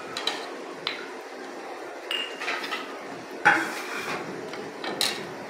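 A metal ladle knocking against a metal pot and glasses being handled and set down: several sharp clinks and knocks, one ringing briefly about two seconds in, the loudest about three and a half seconds in.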